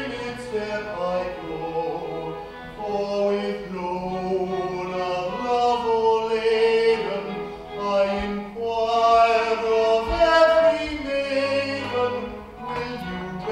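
Music: operatic singing over an orchestral accompaniment.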